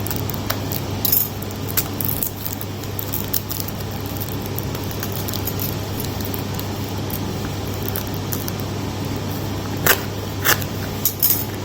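A parcel being opened by hand: scattered clicks, taps and rustles of its packaging, sharper and more frequent near the end, over a steady low hum.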